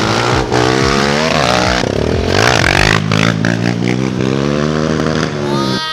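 Kawasaki KLX 150's single-cylinder four-stroke engine revving hard under acceleration, its pitch rising and falling through the gears. Near the end the pitch drops away sharply.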